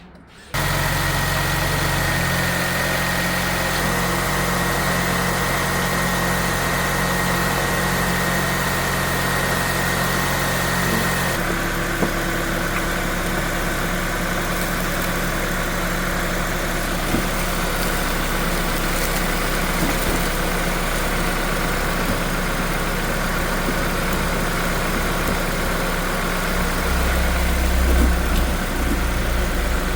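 An engine-like machine hum running steadily with a faint high whine. It starts abruptly about half a second in and changes slightly in tone about eleven seconds in.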